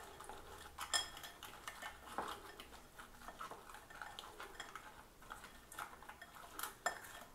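Raw crab pieces being mixed by hand with onion paste and spices in a glass bowl: faint wet squishing, with the shells clicking against the glass and a few sharper clinks about a second in and near the end.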